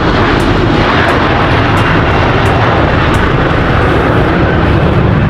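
Turbofan engines of a Bombardier CRJ-series regional jet at takeoff power on its takeoff roll: a loud, steady rushing jet noise with a deep rumble underneath.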